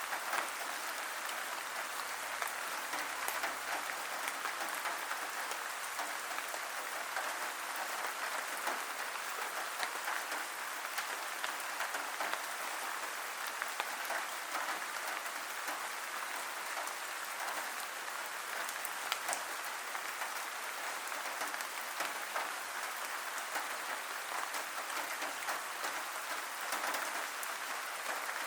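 Steady rain: an even hiss dotted with many small, sharp drop clicks.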